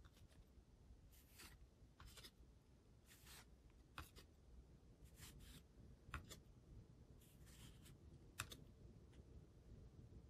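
Faint brushing swishes of glossy hockey trading cards sliding off one another as a stack is flipped through one card at a time, about one a second, with a few sharper ticks of card edges.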